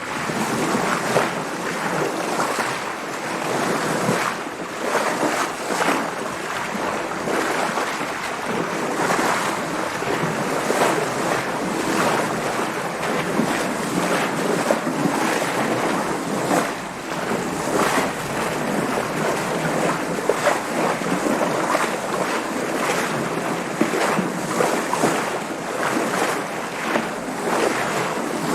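Water splashing and washing around a sailboat under way, with wind blowing across the microphone: a steady wash broken by many small irregular splashes.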